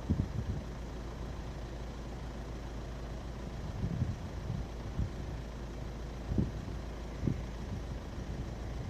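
Steady low rumble of an ATR 72-600 turboprop airliner on approach, heard from a distance, with a few short low thumps on the microphone.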